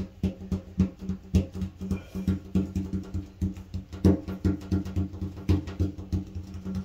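Gloved fingertips tapping epoxy putty into place around a bathtub drain opening: a run of short, irregular taps, a few a second, with a sharper one about four seconds in, as the putty is flattened to form the drain's edge.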